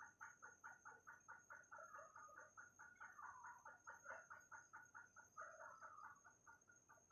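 Faint, rapid run of short clucking animal calls, about five a second and fairly regular, over a steady high-pitched whine.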